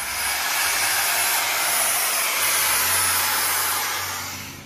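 Power grinder grinding metal steadily off the front steering where a part rubs, to clear it for full steering lock; the grinding fades out near the end.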